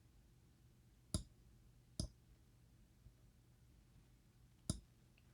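Three sharp little clicks of small lock parts being handled, two about a second apart and a third a few seconds later, over a faint low hum.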